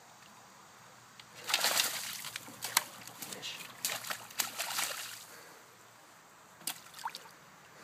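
A smallmouth bass thrashing in shallow stream water as a hand grabs at it, with repeated splashes and sloshing from about a second and a half in to about five seconds in.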